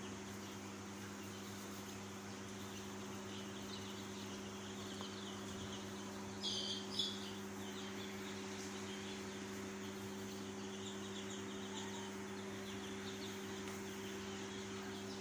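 Young chicks peeping softly over a steady low hum, with two louder peeps about six and a half seconds in.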